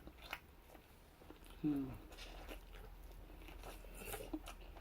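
Close-up eating sounds: chewing with wet mouth clicks and small crunches. About a second and a half in comes one short, low vocal sound that falls in pitch.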